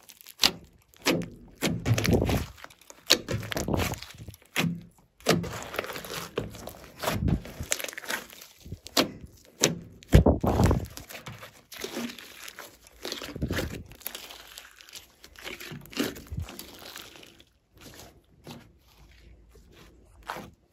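Hands squishing, pressing and folding a large blob of blue slime, with wet squelches and sharp pops in irregular bursts. The loudest pop comes about halfway through, and the squishing gets quieter in the last few seconds.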